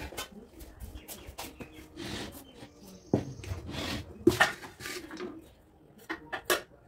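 Aluminium cooking pot and steel plate lid knocking and clinking as they are handled on a stone counter, with a few sharp knocks about three and four seconds in and two more near the end. Doves coo faintly in the background.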